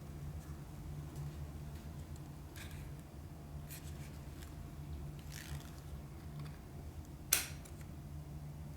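Soft, scattered rustles and scrapes of hands handling a camera and its packaging, with one sharp click about seven seconds in, over a steady low hum.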